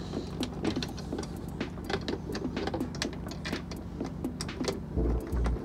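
Light clicks and taps of a clear plastic underwater camera housing and an aluminium tray being handled and fitted together. About five seconds in, background music with an even, pulsing bass beat comes in.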